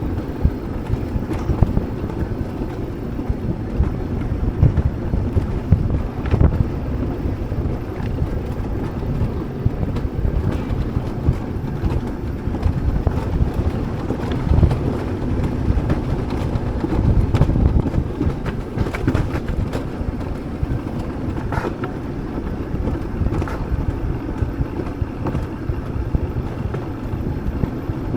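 Alpine coaster sled running down its rails, a steady rumble with wind buffeting the action camera's microphone and scattered sharp clacks.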